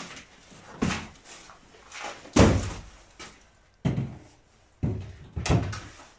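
A series of knocks and thuds as a used steel exhaust muffler and cardboard boxes are set down and shifted on a wooden workbench, about six in all, the loudest about two and a half seconds in.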